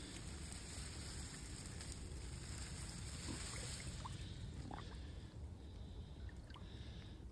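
A pike being slid off flattened reeds back into a small river: a rustling hiss for the first few seconds, then a few small water plinks as the fish enters the water. Under it all runs a steady low rumble.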